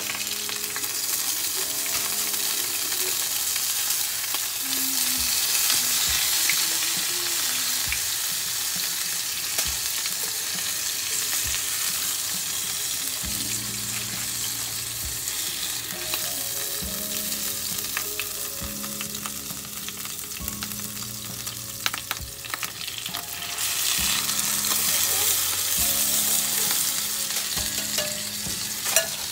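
Chicken breasts sizzling steadily in hot oil in a frying pan, with a few sharp clicks of metal tongs against the pan as the pieces are lifted out.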